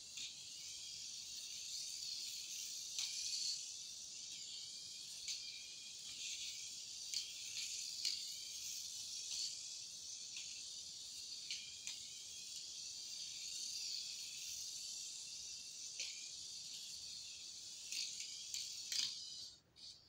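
Turbo Racing C75 1:76 micro RC car running laps: its tiny electric motor and gears give a steady, high-pitched hissing whir, with a few light clicks along the way. The sound stops just before the end.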